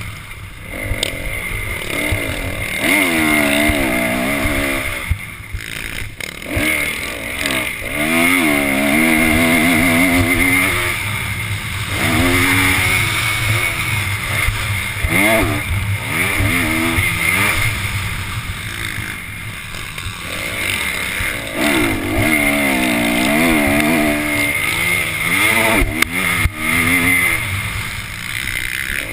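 Motocross dirt bike engine, heard from a camera mounted on the bike, revving hard and falling off again and again as the rider accelerates, shifts and brakes around the track.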